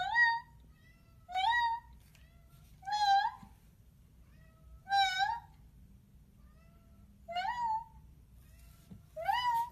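A black cat meowing over and over: six loud meows, each rising in pitch, coming every one and a half to two seconds.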